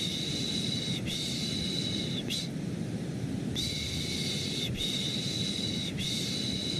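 Soothing 'shh' shushing for a baby, repeated in sets of three strokes of about a second each with a pause of about a second between sets, over a steady low-pitched white-noise hiss.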